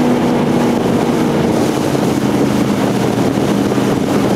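A 1970s fiberglass jet boat's engine running under way, with wind on the microphone and a rush of noise. About a second in, the engine's pitch drops and then holds steady and lower as the boat eases off the throttle.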